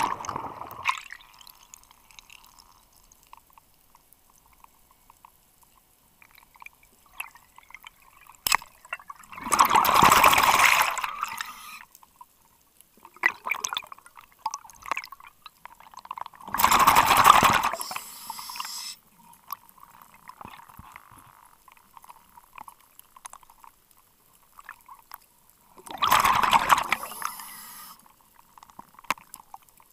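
Scuba diver's exhaled breath bubbling out of the regulator, heard underwater: three long bubbling exhalations about eight seconds apart. Just before the first, the churn of the entry splash fades away.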